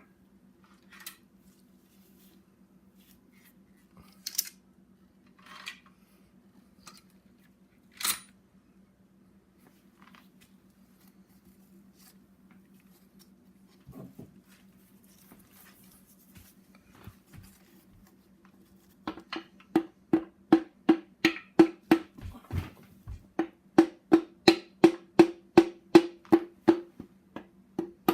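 Work on an engine block: a few scattered metallic taps and clinks, then in the last third a fast, even run of clicks at about three a second. A low steady hum runs underneath.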